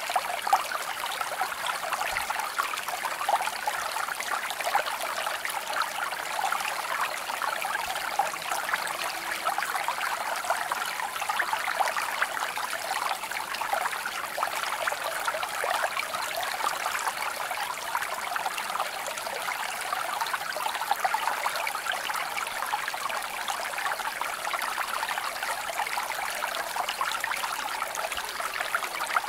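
Steady running water of a small stream, trickling and splashing evenly without a break.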